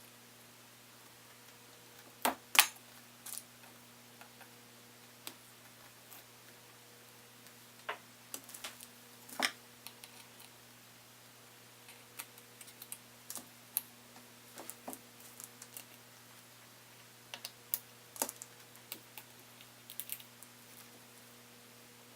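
Scattered small clicks and taps of hand tools and small parts being handled inside an opened MacBook Pro, irregular and sparse, with a few sharper knocks. A faint steady hum lies underneath.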